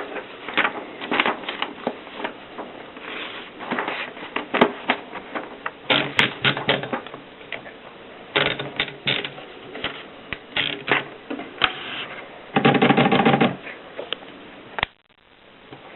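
Mercedes Selekta typewriter being typed on: keys striking in quick, irregular clusters of clacks. A little before the end comes a dense, loud rattle lasting about a second, then the sound drops away suddenly.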